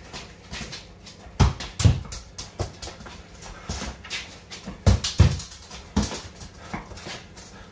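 Football being tapped, rolled and dribbled with the feet on a concrete floor: irregular soft touches and trainer scuffs, with louder thuds of the ball a second and a half to two seconds in and again around five seconds.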